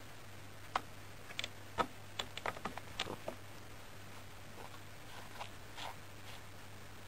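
Irregular small clicks and taps close to the microphone, a quick run of about a dozen and then a few fainter ones later: contact noise from a cat rubbing her face and a pom-pom toy against the camera.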